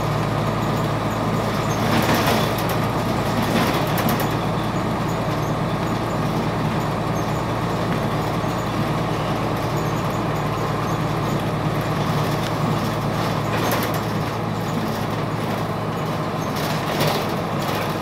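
Cabin of a 2002 Blue Bird CS transit bus under way, its Cummins ISC six-cylinder diesel engine running with a steady drone. A few short hissing or rattling bursts come through, about 2 s, 4 s, 14 s and 17 s in.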